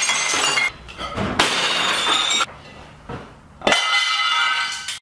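Dishes smashing and shattering, three separate crashes a little over a second apart, each followed by the ringing of breaking pieces.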